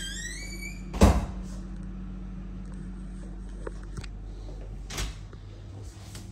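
An interior door creaks with a rising squeak, then shuts with a loud bang about a second in. A softer knock follows about five seconds in as a cupboard door is opened. A steady low hum runs underneath.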